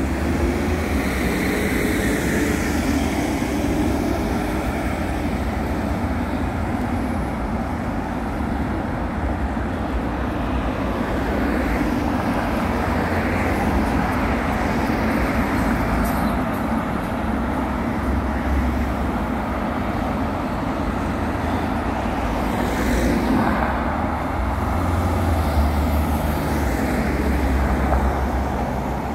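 Steady road traffic: car engines and tyre noise as a stream of cars drives past and turns. In the first few seconds one engine note rises slowly as a car pulls away.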